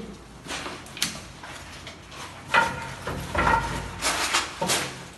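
Wet concrete being scraped and pushed by hand across a countertop mold: a string of irregular scraping and sliding strokes, the loudest a few seconds in.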